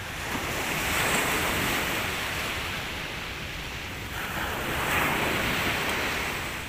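Sea waves washing up on a beach, the surf swelling twice and ebbing between, with wind blowing on the microphone.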